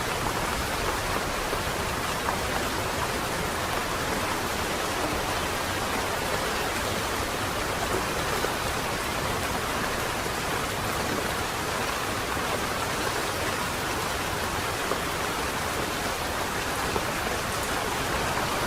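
Light rain falling steadily, an even hiss with no breaks or single loud drops.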